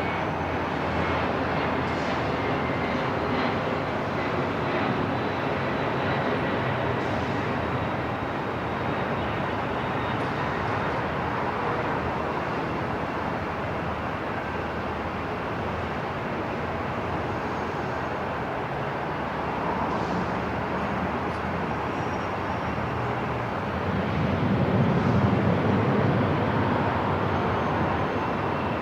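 Airport ambience: a steady wash of noise with a few faint, scattered knocks, and a low rumble that swells and fades again about 24 seconds in.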